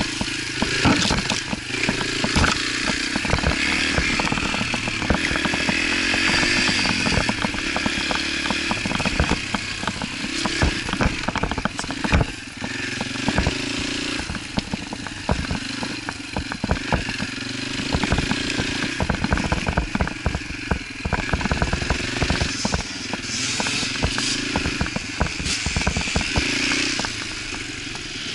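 Yamaha TT-R125 dirt bike's single-cylinder four-stroke engine running hard while ridden on a rough dirt trail, its pitch rising and falling over and over as the throttle opens and closes. Many sharp knocks and rattles from the bumpy trail run through it.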